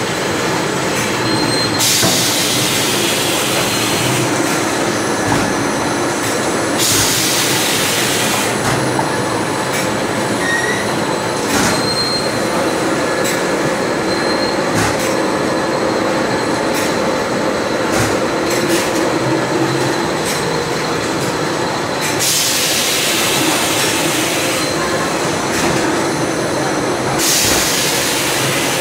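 Shrink-wrapping machine running: a steady loud rattling din from its conveyor and shrink tunnel. Rushes of high hiss come four times, each a second or two long.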